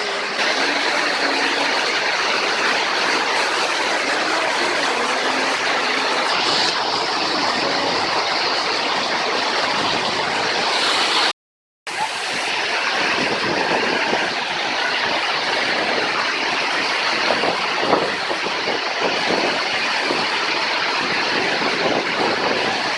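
Waterfall: steady rushing of falling water, with a half-second dropout near the middle.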